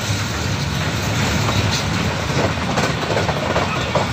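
Freight train passing close by: steady rumble of steel wheels rolling on the rails, with a run of clacks in the second half as the wagons and brake van go past.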